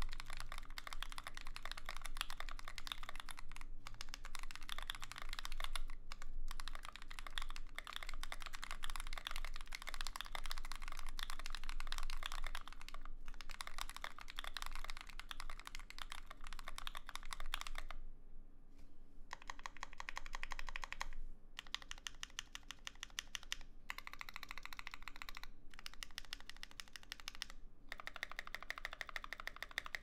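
Fast typing on a KBD67 custom mechanical keyboard with lubed and filmed NovelKeys Cream linear switches in an aluminium plate and GMK keycaps: a dense run of keystrokes with brief pauses. After about eighteen seconds the typing comes in shorter runs with gaps between them.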